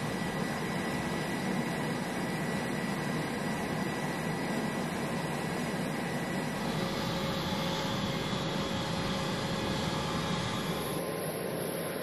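Steady jet-engine noise of aircraft on a carrier flight deck: an even, unbroken rush with a faint steady whine over it.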